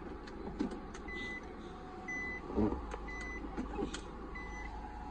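Nissan X-Trail's reverse-gear warning beeping inside the cabin: short high beeps about once a second, sounding with the selector in reverse, over the low steady running of the idling engine. A few light clicks come near the start and a short low bump about halfway through.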